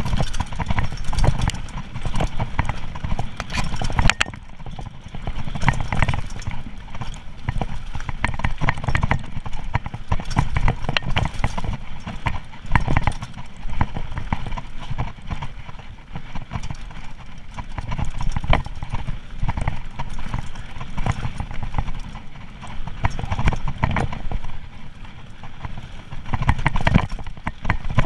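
Mountain bike descending a rough dirt and gravel trail at speed: tyres crunching over stones and the bike rattling and clattering over bumps in an irregular stream of knocks, with deep wind rumble on the microphone.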